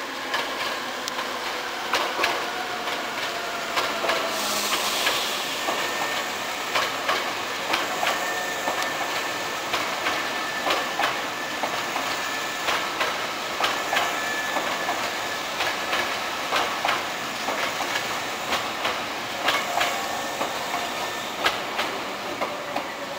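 Hankyu 3300 series seven-car electric train, set 3330F, coming into a station, with its wheels clicking over the rail joints, often in pairs as each bogie passes, over a steady running rumble. A faint whine runs under the clicks, and there is a brief hiss about five seconds in.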